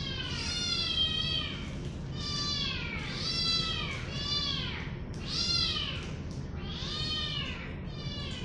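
An unseen young animal cries over and over: about seven high mewing calls, each rising and then falling in pitch.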